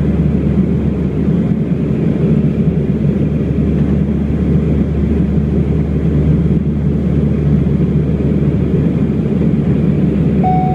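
Cabin noise inside an Embraer EMB-120 Brasilia on descent: the steady low drone of its twin turboprop engines and propellers.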